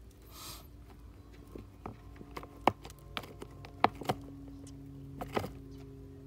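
A short hiss-like rush of noise about half a second in, then irregular sharp clicks and knocks, about half a dozen, over faint sustained tones of background music.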